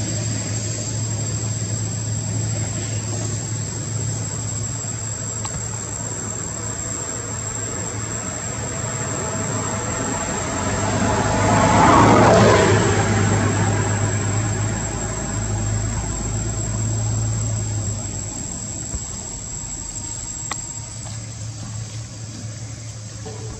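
A steady low engine hum, with a motor vehicle passing by that swells and fades about halfway through. A thin steady high whine sits above it.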